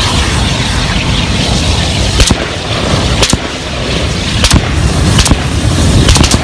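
A tall column of fire from a Tannerite blast burning with a steady rushing noise, broken by sharp pops about once a second from about two seconds in.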